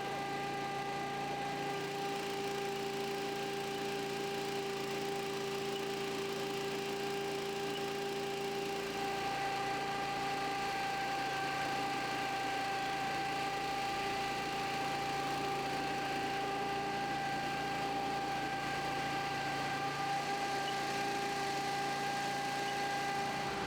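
Steady mechanical hum over a hiss, holding several constant pitches; a lower part of the hum drops out about nine seconds in.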